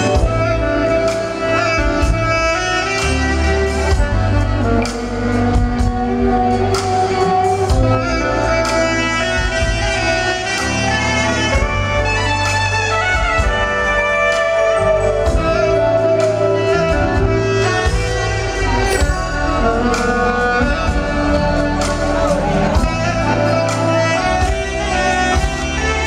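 Live smooth-jazz band: a soprano saxophone plays a slow, held melody over electric bass, drum kit and congas, with a steady beat.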